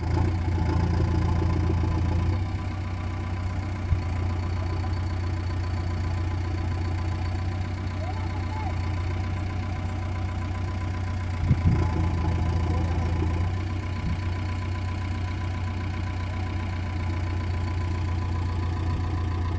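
JCB 3DX backhoe loader's diesel engine running steadily, easing back slightly about two seconds in. A few short knocks come through, once near the four-second mark and again just past the middle.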